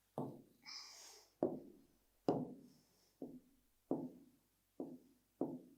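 A series of about seven hollow taps or knocks on a hard surface, irregularly spaced at roughly one a second, with a brief scratchy scrape about a second in.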